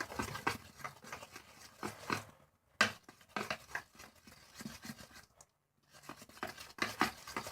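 Shampoo and toothpaste mixture being stirred in a bowl with the tip of a toothbrush: irregular small scraping and clicking, with two short pauses.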